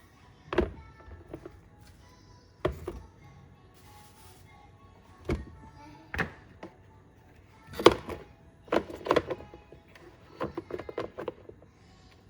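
Corn cobs and steamer parts being set into a metal tiered steamer pot: a series of irregular knocks and clunks, with a cluster of quicker knocks near the end.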